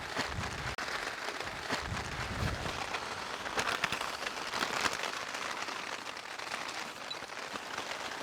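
Steady heavy rain drumming on a tarp shelter, with scattered sharper drop taps.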